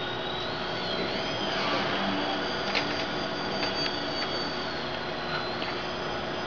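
Small indoor 3D RC airplane's electric motor and propeller whining steadily at a high pitch. The whine wavers down and back up about a second in and dips again near the end as the plane hangs in a hover.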